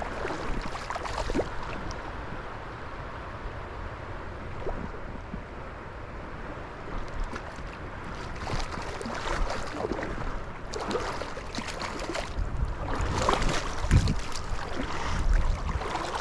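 Flowing river water with wind rumbling on the microphone, plus a run of short rustles and knocks in the second half.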